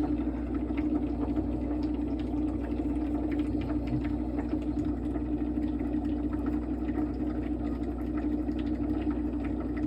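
A small motor running with a steady, even hum.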